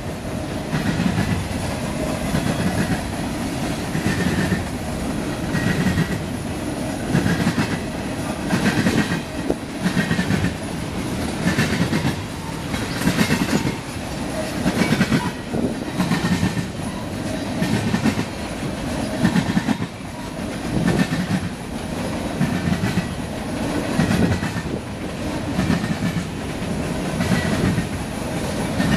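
A freight train of covered hopper and tank cars rolling past, the steel wheels clacking over the rails in a steady rhythm over a low rumble.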